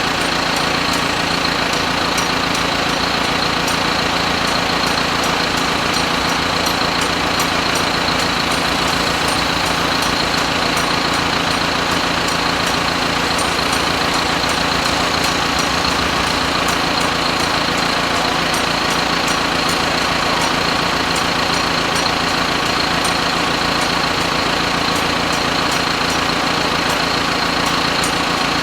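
A machine running steadily at constant speed, with a steady high whine and a faint, regularly repeating tick.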